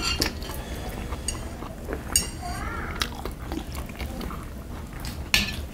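Metal chopsticks clinking against brass bowls, a handful of separate clinks with brief ringing, the loudest near the end, amid chewing.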